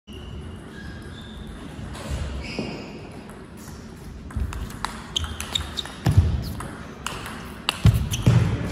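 Table tennis rally: the celluloid ball clicking sharply off the bats and table, in a fast run over the second half. Low thuds come from the players' feet on the hall floor.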